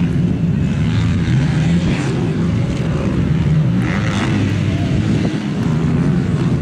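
Motocross bike engines running and revving on a dirt track, a steady drone whose pitch keeps rising and falling.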